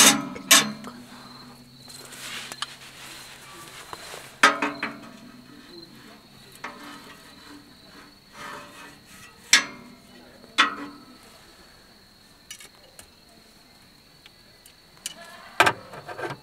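Metal clanks and knocks from a small steel wood stove as fire tongs poke the kindling in its firebox, about six scattered strikes, some ringing briefly. A steady high insect trill runs underneath.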